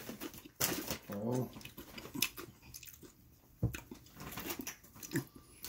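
Potato chips being bitten and chewed: scattered sharp crunches, the loudest a little past halfway, with a brief murmured voice about a second in.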